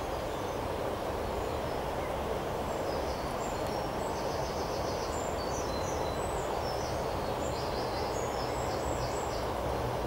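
Steady rushing outdoor background noise with a low rumble, and a small bird singing faint, short high trills and chirps from about three seconds in.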